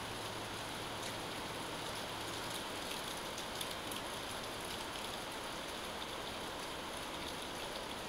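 Steady rain falling during a thunderstorm, an even hiss with faint scattered drop ticks.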